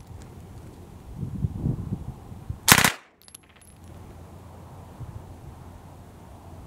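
An MP35 submachine gun firing one short burst of automatic fire about two and a half seconds in, lasting about a third of a second.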